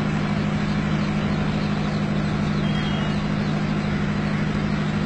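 An engine running steadily, a constant low drone.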